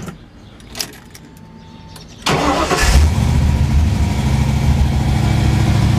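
A 1988 Mustang GT's 5.0 L (302) small-block Ford V8, fitted with a Trick Flow cam, starts on a light tap of the key a little over two seconds in. It catches almost at once and settles into a steady idle.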